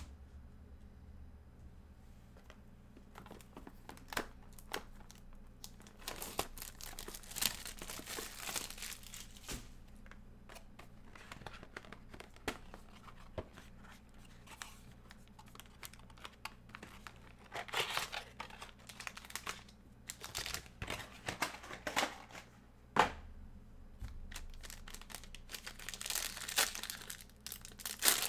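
Trading-card packaging being crinkled and torn open by hand, with the cards being handled, in irregular bursts of crinkling and a few sharp clicks.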